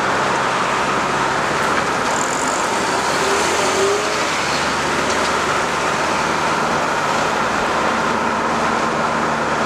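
Steady road and engine noise of a moving car, with other traffic passing close alongside, a bus among it about four seconds in.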